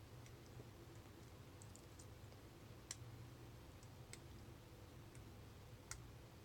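Faint, scattered metallic clicks of a lock pick and tension wrench working the pin tumblers of a Craftsman brass padlock, with a couple of sharper clicks about three and six seconds in.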